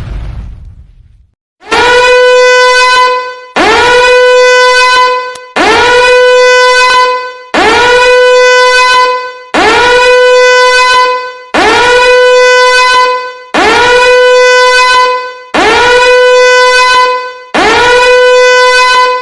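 A horn sound effect: one steady horn note blown about nine times in a row, each blast about two seconds long and sliding up slightly in pitch as it starts. In the first second the tail of an explosion effect fades out.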